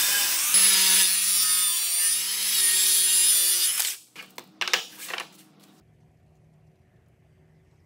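Handheld disc sander running hard against the rough live edge of a Korean mahogany slab, a loud grinding rush with a high whine. It cuts off about four seconds in, followed by a few short knocks and then faint background.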